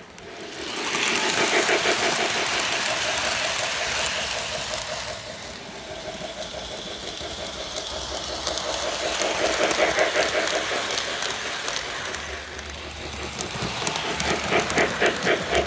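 Lionel O gauge Polar Express model steam train running on FasTrack, its locomotive and cars rattling in a quick, even rhythm that grows louder each time the train passes close.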